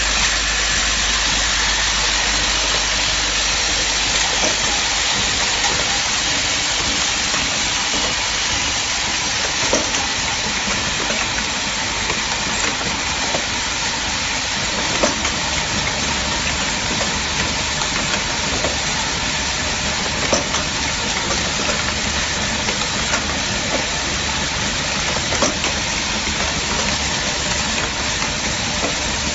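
Automatic packing machine for 24/6 staples running, fed by a vibratory bowl feeder: a steady, loud hissing machine noise with scattered sharp clicks.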